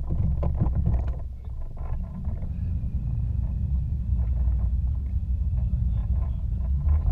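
Low steady rumble of the boat's engine idling, mixed with wind on the microphone, with a few sharp clicks and knocks in the first second or so.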